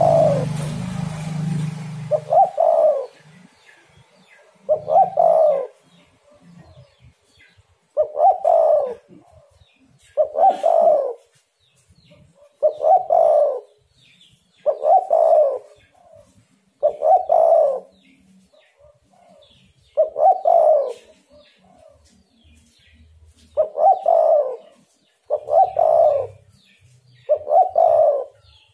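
Spotted dove (tekukur) cooing its song over and over, a phrase about every two seconds with short pauses between. A brief rustle comes at the very start.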